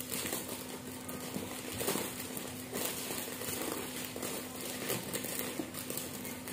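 Clear plastic goodie bag crinkling and rustling in the hands as it is filled with snack packets and twisted closed.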